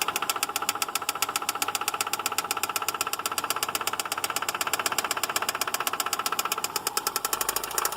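2006 Subaru Outback engine running with a rapid, steady, sharp knock, about a dozen knocks a second.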